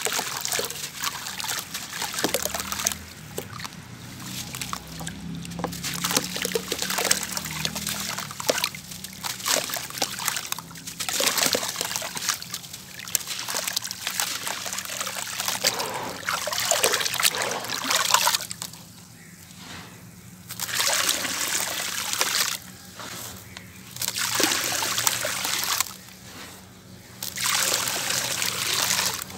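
Soft sand-cement blocks crushed and crumbled by hand, gritty crumbs and powder crunching and pouring into a bowl with water in it, with wet splashing. Later on, the pours come in separate handfuls of about two seconds each with short pauses between.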